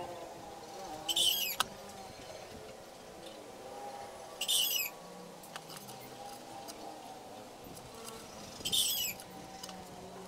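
A bird calling: a short, high-pitched chirping call repeated three times, about every three to four seconds.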